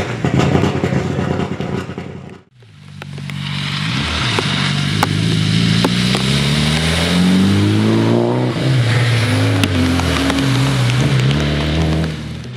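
Mitsubishi Lancer Evo IV rally car's turbocharged four-cylinder running hard, its note climbing and dropping back again and again as it is driven through the gears on a wet stage. A hiss of tyres on the wet road runs with it, along with a couple of sharp cracks. A sudden break about two and a half seconds in separates this from a dense stretch of the same engine running beside the car.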